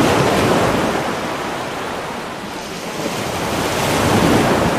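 Ocean waves washing in, a steady rush that swells, eases off about halfway through, then swells again near the end.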